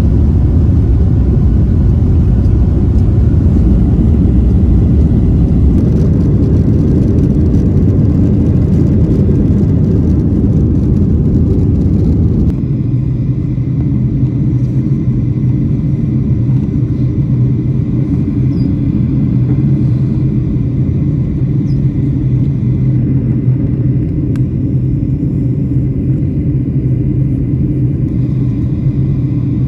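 Jet airliner noise heard from inside the cabin: a loud, steady rumble of the engines and airflow. About twelve seconds in it changes to a somewhat quieter drone with a steady hum running through it.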